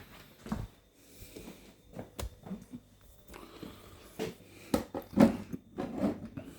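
Irregular knocks, thumps and handling noises, loudest around five seconds in.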